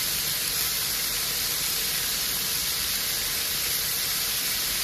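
Chickpeas and onions frying in hot oil in a pan, a steady sizzle.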